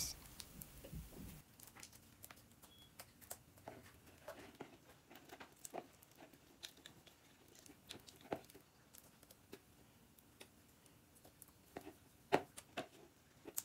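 Faint, scattered sticky clicks and pops of glue slime being handled and scraped out of a bowl with a spoon, with a few sharper clicks, the loudest near the end.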